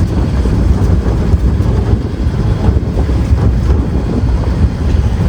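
Vehicle driving over a rough off-road mountain track: a loud, steady low rumble of engine and tyres, with wind buffeting the microphone.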